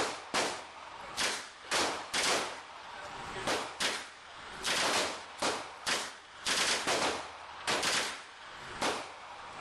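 Firearm shots, over a dozen, some single and some in quick pairs and short clusters, irregularly spaced.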